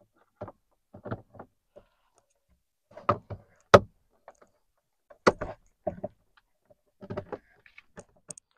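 Plastic cabin-filter access cover behind an Infiniti Q50's glove box being pressed back into place by hand: a string of plastic knocks and clicks, the sharpest a little under four seconds in and another just after five seconds.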